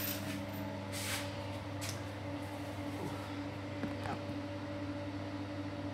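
Steady low electrical hum in a small room, with two brief hissing rustles about one and two seconds in.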